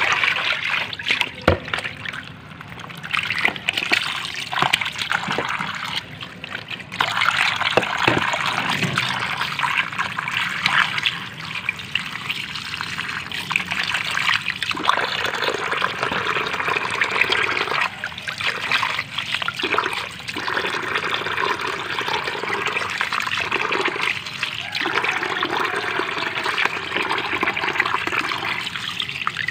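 Water splashing and sloshing in a plastic basin as whole moonfish are rubbed and rinsed by hand, with a stream of water pouring into the basin.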